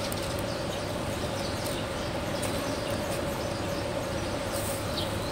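Steady outdoor background noise with a constant hum underneath, and a few short, high, falling bird chirps.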